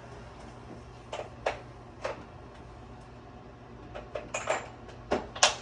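Sheet-metal HVAC duct pieces being handled and fitted together: scattered light metallic clicks and taps, with a sharper knock near the end.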